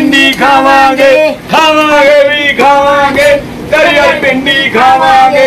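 A single voice singing without accompaniment, holding long, wavering notes in short phrases.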